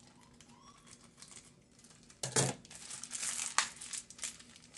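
A package's wrapping crinkling and rustling as it is handled. It starts about two seconds in, with the loudest crinkle at the start, then a run of smaller crinkles for about two seconds.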